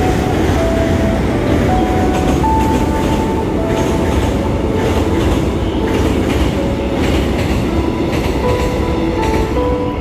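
A passenger train rumbling and rattling across a steel truss railway bridge overhead, its wheels clattering over the track. A slow, soft melody of single notes plays over it.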